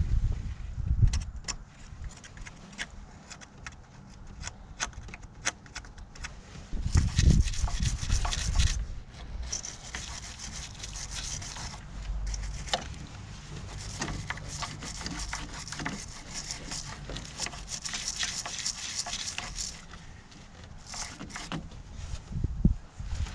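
Scrubbing and scraping crusted corrosion off a car battery terminal with a brush, with scattered sharp taps and clicks; a long stretch of steady back-and-forth scrubbing runs through the middle.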